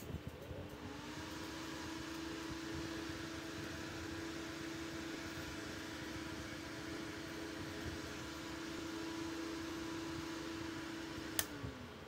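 AC axial cooling fan switched on with a click, spinning up in about a second to a steady hum with a rush of air. Near the end a sharp click, after which the hum falls in pitch as the fan winds down.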